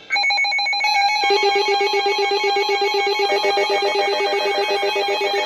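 Emergency Alert System attention tones from several broadcasts layered over one another. Loud, shrill steady tones with a fast warble start abruptly, and further tones join in about one, one and a half and three seconds in, signalling an incoming weather warning.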